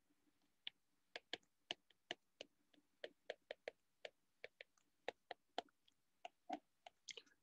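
Faint, irregular clicks and taps of a stylus tip on a tablet's glass screen during handwriting, about three a second.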